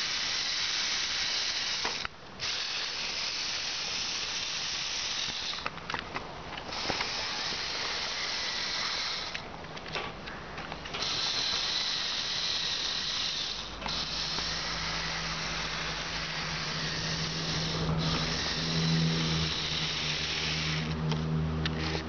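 Electric motors and plastic gearing of a four-wheel-drive LEGO Technic remote-control car whirring as it drives over sand, in runs of a few seconds with short breaks. About two-thirds of the way through a steadier low hum joins the whirr.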